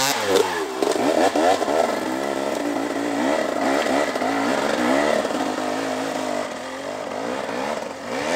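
KTM 300 XC-W two-stroke single-cylinder dirt bike climbing a steep hill, its engine revving up and down again and again as the throttle is worked. It grows fainter near the end as the bike climbs away up the slope.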